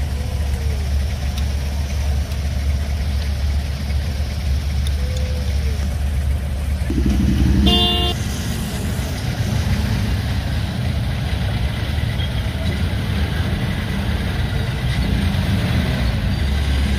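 Steady low rumble of engines and street traffic, heard from inside a slow-moving vehicle. A vehicle horn toots briefly about seven to eight seconds in.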